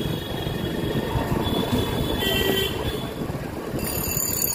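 Street traffic heard from a moving motorbike: steady engine and wind noise, with a short vehicle horn toot about halfway through.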